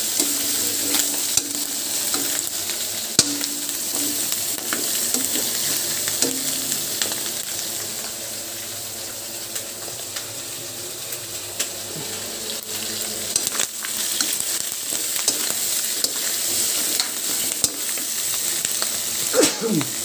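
Pork hock pieces sizzling in hot oil in a wok with sautéed garlic, onion and chili, stirred with a spatula that clicks and scrapes against the pan now and then over a steady sizzle.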